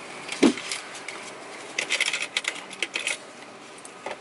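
Coins clinking as a hand rummages for change in a car's centre console: runs of quick light clicks, with one duller knock about half a second in.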